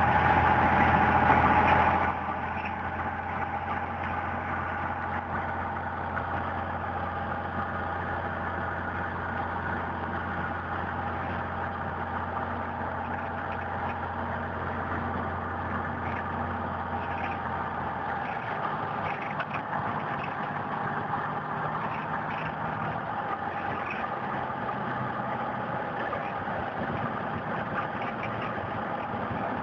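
Piston engine of a light single-engine airplane droning steadily in flight, heard from inside the cockpit. About two seconds in the sound drops suddenly to a quieter, steady level.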